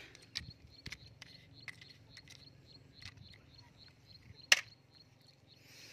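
Light clicks and taps of small plastic toy trucks being picked up and handled over a wooden plank, with one sharper click about four and a half seconds in.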